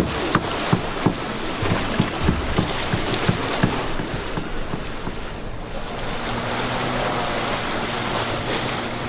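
Lake water washing and splashing against a rocky shore. From about six seconds in, a motorboat's engine drones steadily underneath.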